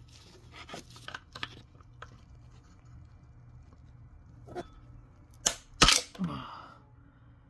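Steel pry bar clicking and knocking against the transmission's plastic connector plug and housing as the plug is levered out. It makes scattered light clicks, then two loud sharp clicks close together near the end.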